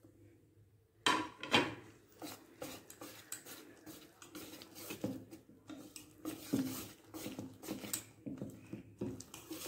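Wire whisk scraping and clinking against a stainless steel bowl in irregular strokes as it stirs thick cake batter with chopped dried fruit and nuts. The strokes start about a second in.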